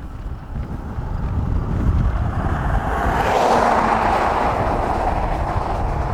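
Wind buffeting the microphone in a low, gusty rumble, with a rushing noise swelling about three seconds in and easing off toward the end.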